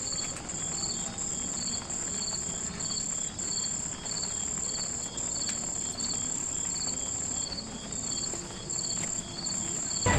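Insects chirping: a steady high trill broken by short gaps, over a lower chirp that pulses about every half second.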